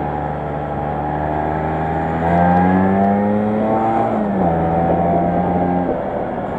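Vespa 125 Super's two-stroke single-cylinder engine running under way: the engine note climbs as it is opened up about two seconds in, dips slightly just after four seconds, then drops away near the end, leaving wind and road noise.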